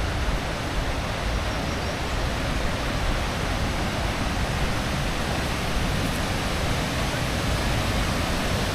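Steady rushing roar of a nearby waterfall and its cascades, an unbroken wash of falling water.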